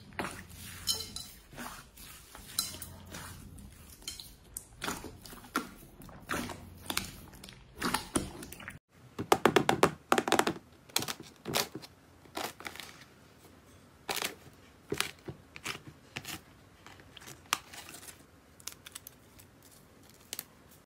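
Hands squishing floam slime, its foam beads crackling and clicking. After a short break, a crunchy crust slime is pressed and peeled, its dry crust crackling; the crackling is densest and loudest when it is first pressed, about halfway through.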